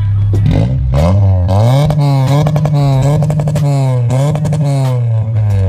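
Honda Accord's engine and exhaust revved up and held against the launch-control rev limiter, the flat high note broken by rapid crackling pops. The revs drop and climb again twice.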